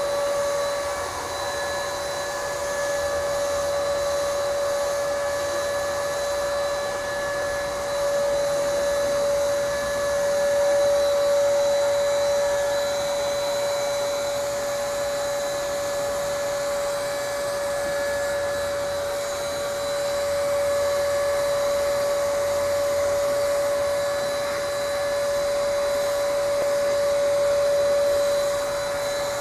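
Paint spray gun spraying, over the steady high-pitched hum of the motor driving its air supply; the spray hiss swells a few times.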